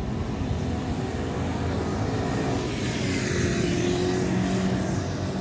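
A moped passes close by over steady street rumble, its engine note clearest in the second half.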